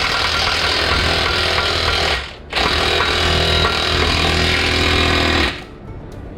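Impact wrench hammering in two long runs with a short pause between them, stopping about five and a half seconds in, as it drives a press to push a bushing into a suspension control arm.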